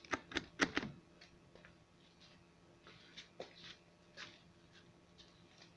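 Faint scattered clicks and taps, several close together in the first second, then sparser, over a faint steady low hum.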